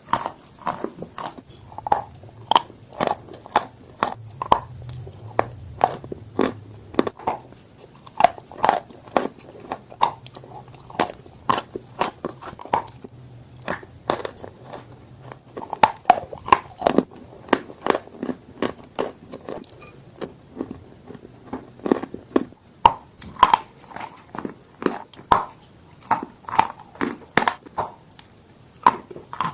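Chalk being bitten and chewed in close-up: a run of sharp, dry crunches at an irregular pace of about one or two a second, with a brief lull about two-thirds of the way through.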